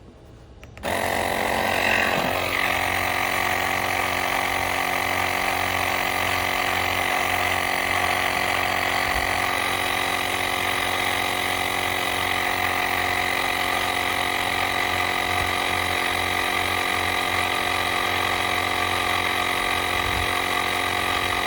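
Battery-powered GREPRO portable tire inflator, a small motor-driven air compressor, starting about a second in and running steadily as it pumps up a flat basketball.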